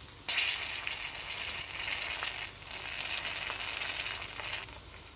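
Cut okra frying in oil in a kadhai over low heat: a steady sizzle with small crackles. It starts about a quarter second in, dips briefly around the middle, and dies down near the end.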